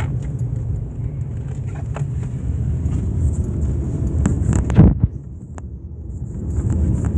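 Car cabin road noise: engine and tyres running on a rough, potholed road, with a few light knocks and one loud thump just before five seconds in as the car jolts over the rough surface.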